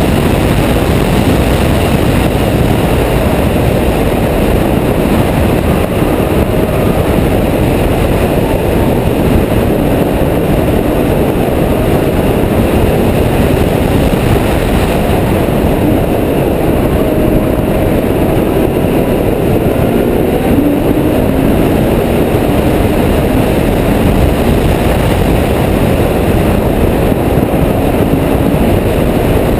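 A Ferrari F12berlinetta driving fast, heard through a camera mounted on the outside of the bodywork: a loud, steady rush of wind on the microphone, with the car's V12 engine and tyre noise underneath it.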